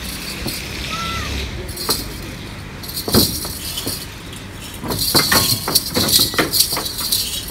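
A heifer's hooves knocking on the wooden planks of a truck's unloading ramp as she is led down it: a single loud knock about three seconds in, then a quick run of knocks near the end.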